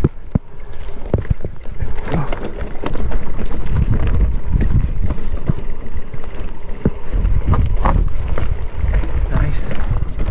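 Wind buffeting the microphone of a moving camera on a mountain bike ride, with frequent knocks and rattles as the bike runs over rough trail.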